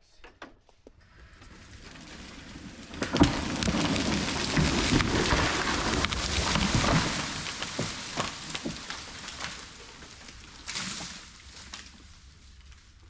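Hickory tree falling: crackling and snapping of wood as it goes over, then a loud crash of limbs and trunk hitting the ground about three seconds in. Several seconds of cracking and rustling branches follow and die away, with a smaller crash near the end.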